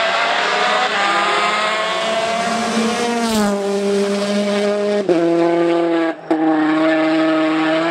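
Rally car engine running hard at high revs, its note dipping about three seconds in and breaking off sharply twice, around five and six seconds in, as at gear changes, before holding steady again.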